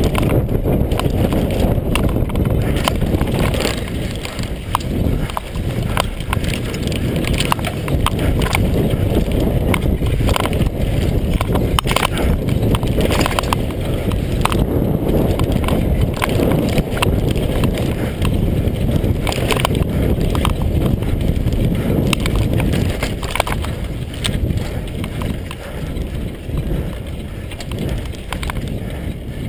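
Mondraker Kaiser downhill mountain bike descending a dirt trail at speed: a constant rumble of wind and tyres on the dirt, with many sharp clicks and knocks as the bike's chain and frame rattle over bumps. The run grows somewhat quieter near the end.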